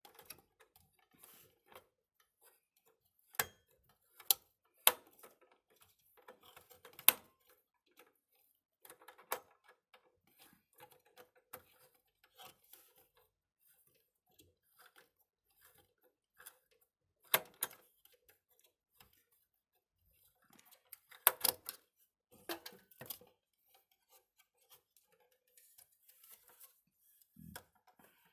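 Sharp clicks and knocks every few seconds, with faint scraping between them: a screwdriver and the metal parts of a desktop PC's CPU heatsink being handled and worked on.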